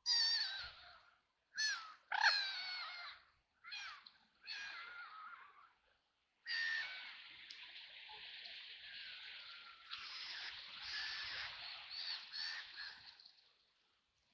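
Ducks quacking: a handful of separate calls in the first few seconds, then a longer run of overlapping quacks from about halfway through that fades out near the end.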